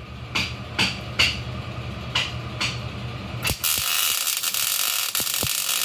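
A few sharp knocks over a low hum, then, about three and a half seconds in, an Eastwood MIG welder strikes its arc and runs with a steady, crackling hiss as a suspension link mount is welded to the frame.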